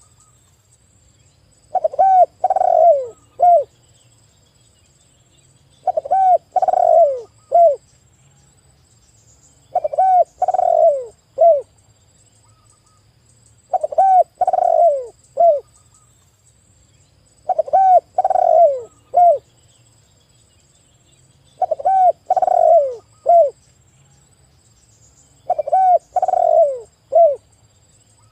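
Spotted dove (tekukur) cooing its song over and over: a phrase of about four low, arched coos, the third the longest, repeated about every four seconds.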